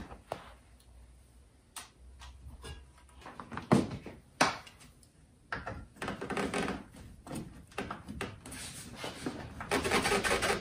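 Handling noise from an upper radiator hose being fitted onto an aluminium radiator's inlet neck: a few scattered knocks, then longer spells of rubbing and scraping as the hose is pushed and twisted into place.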